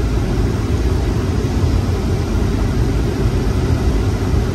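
Steady rush of air from a 2014 Ford Expedition's climate-control blower with the engine idling, heard inside the cabin.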